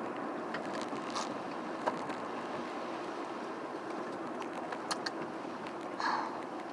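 Steady road and engine noise heard from inside a moving car, with a few light clicks.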